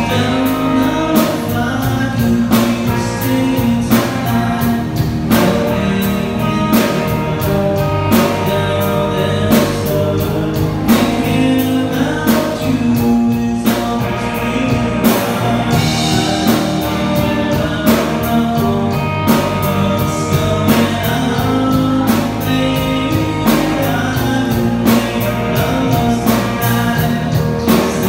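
Three-piece rock band playing live: electric guitar, bass guitar and a drum kit keeping a steady beat, with the bassist singing lead.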